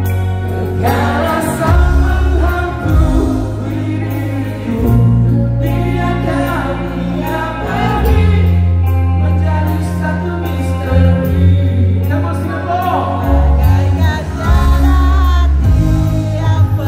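Live band music with singing: a slow song over long held bass notes, the melody gliding and bending above.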